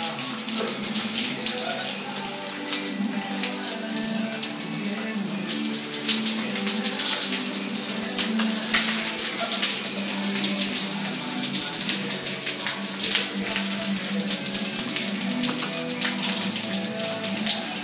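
Shower spray running steadily, the water pattering on the tile wall and on a wet capuchin monkey's fur, with a low hum of steady tones beneath.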